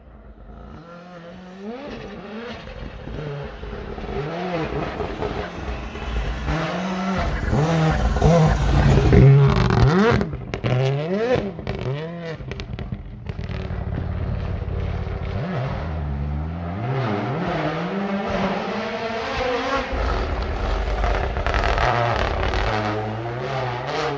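Toyota Yaris WRC rally car's turbocharged four-cylinder engine driven hard on a snow road, revving up and down through the gears as it approaches. It is loudest about ten seconds in as it slides past, and is still heard revving hard as it carries on down the road.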